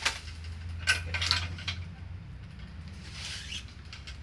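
Badminton racket stringing machine being worked: sharp metallic clicks of its clamps and tensioner at the start and about a second in, a low hum for the first two seconds, and a brief hiss of string being drawn through near the end.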